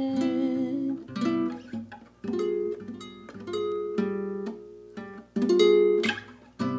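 Background music from a slow ballad. A held sung note fades out in the first second, then an acoustic guitar plays a run of plucked notes and chords, each ringing and dying away.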